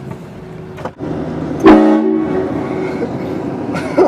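A car-mounted train horn blasts once, suddenly, about a second and a half in: a loud chord of several tones, strongest for about half a second, then tailing off. A short loud burst follows near the end.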